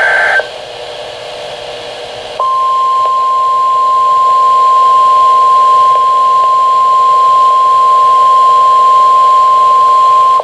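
Mock NOAA Weather Radio emergency alert: a brief burst of alert data tones, a moment of radio static, then the steady single-pitch 1050 Hz warning alarm tone starting about two and a half seconds in over a hiss.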